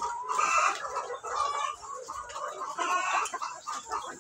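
A large flock of caged laying hens clucking, many short calls overlapping without pause.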